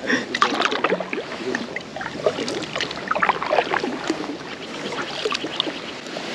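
Water splashing and lapping close against a kayak, with scattered small knocks and clicks.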